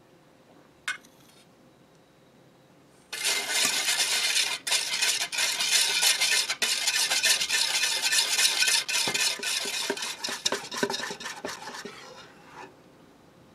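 Wire balloon whisk beating cream and sugar in a stainless steel bowl by hand: fast, rhythmic clattering and scraping of the wires against the metal, starting about three seconds in and tapering off near the end as the cream whips up thick.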